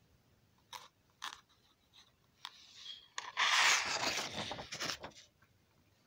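Sheets of crayon-drawn paper being handled and shifted: a few light crinkles, then a louder rustle of paper lasting about two seconds from about three seconds in.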